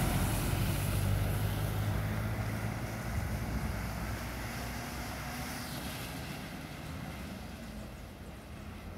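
Intercity coach's diesel engine running as the bus drives off, its sound fading steadily away.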